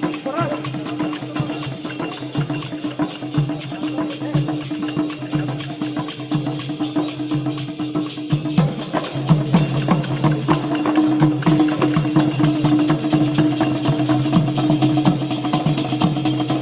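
Music with fast, dense percussion and jingles over a steady held note.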